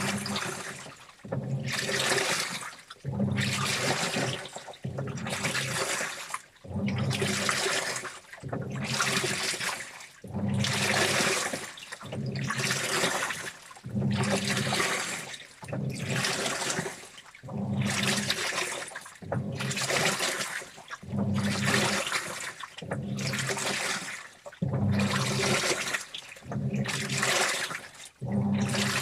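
Washing machine on its wash cycle: water and clothes sloshing in the drum in a regular swish, one about every second and a half, over a low steady motor hum.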